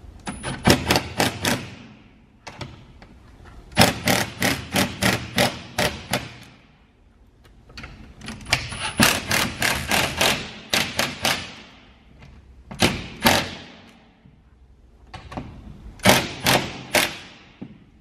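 Milwaukee FUEL cordless impact driver hammering stainless lag screws into the wall in five short bursts, each a fast rattle of impacts, with pauses between.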